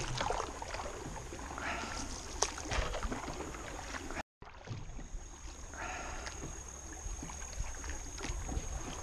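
A small outboard motor pushing a jon boat through shallow river water: a low steady running noise with a thin high whine, scattered knocks and water sounds. The sound drops out completely for a moment a little over four seconds in.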